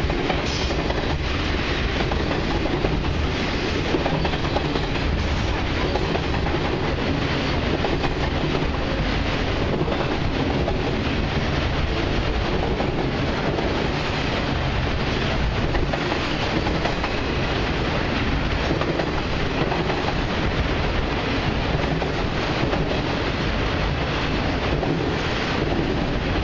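Freight train's boxcars and autorack cars rolling past at steady speed: a continuous rumble of steel wheels on rail with occasional clacks over rail joints.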